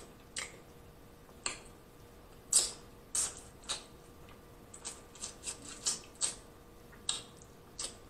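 Close-miked eating sounds of snow crab legs: meat pulled from the shell and chewed, heard as irregular wet mouth smacks and sharp clicks, the loudest about two and a half seconds in.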